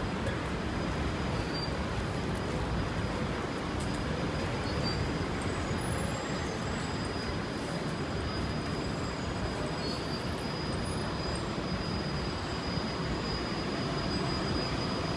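Steady city street noise: a continuous traffic rumble with a thin, steady high-pitched whine running through it.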